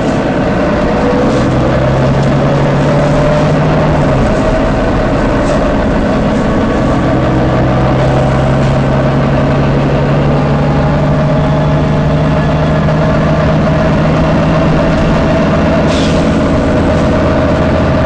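Volvo B9TL bus's nine-litre six-cylinder diesel and driveline running with a steady drone that shifts pitch about four seconds in. Near the end comes one short, sharp hiss of compressed air from the bus's air system.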